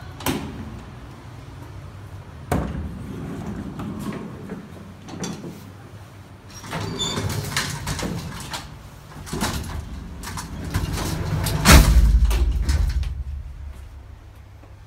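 Old elevator car with a manual collapsible lattice gate travelling in its shaft: scattered knocks and rattles over a steady low motor hum, with one loud clunk and a low rumble about twelve seconds in.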